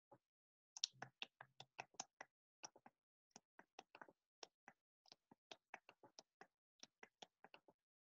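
Computer keyboard keys clicking in a quick, irregular run of about three or four strokes a second, with dead silence between strokes, heard over a video call's audio.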